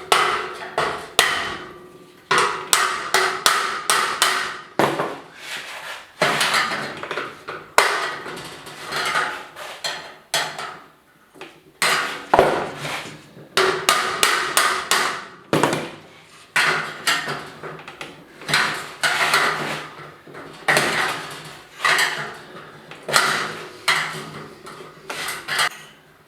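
Hammer blows on the sheet-metal housing of an 8-foot fluorescent light fixture, knocking out a knockout to fit a cable strain relief. The blows come in runs of rapid strikes separated by short pauses, and the metal rings after each strike.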